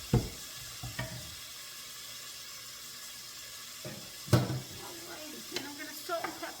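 Onions sautéing in a hot frying pan with a steady sizzle, broken by a sharp knock of a utensil on the pan just after the start and a louder one about four seconds in, with smaller clatters near the end.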